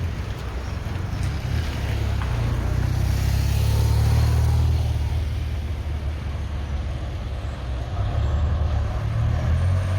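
Motor vehicle engine running with a steady low hum, growing louder to a peak about four seconds in, easing off, then building again near the end.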